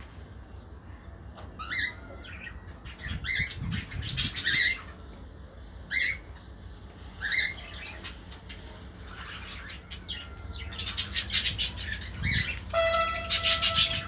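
A flock of budgerigars with a cockatiel calling: short squawks every second or so, then dense, rapid chattering over the last few seconds with one held, steady whistled note.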